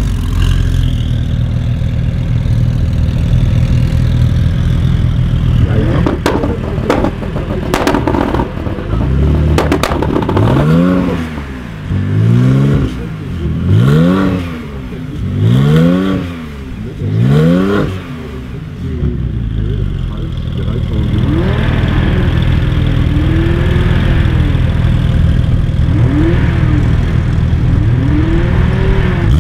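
Turbocharged Lexus SC300 revving on the line, alongside a tuned Porsche 991 Turbo. After a steady idle it gives a run of sharp pops and bangs typical of anti-lag, then blips the throttle repeatedly, each rev rising and falling about every two seconds, with smaller revs near the end.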